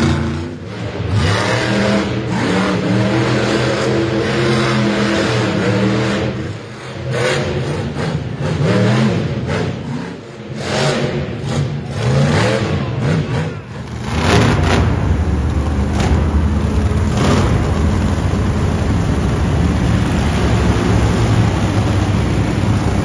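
Monster truck engines revving hard in rising and falling surges with short knocks in between. About fourteen seconds in, the sound cuts to a steadier, deeper engine drone.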